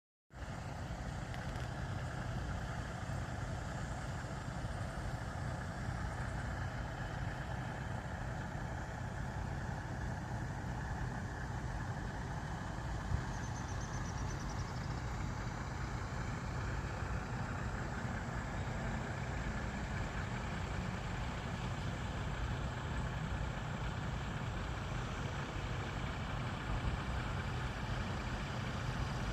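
Steady motor vehicle road noise: a continuous low rumble with an even hiss above it, and one small click about halfway through.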